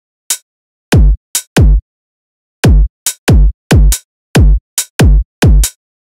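Electronic drum pattern from FL Studio Mobile's drum sequencer: deep, heavy kick drum hits, each dropping in pitch, played in an uneven rhythm with short, sharp snappy hits in between. Only drums play, with no other instruments.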